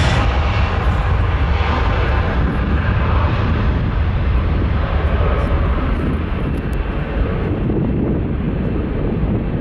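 Jet engines of a Boeing 737-800 at takeoff thrust on the takeoff roll: a loud, steady rumble that grows duller as the jet pulls away. The engines are CFM56-7B turbofans.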